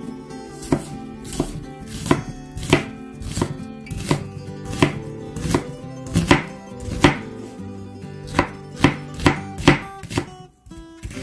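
Chef's knife slicing an onion on a wooden cutting board: a regular run of sharp knocks as the blade meets the board, about one and a half a second, quickening near the end, over background music.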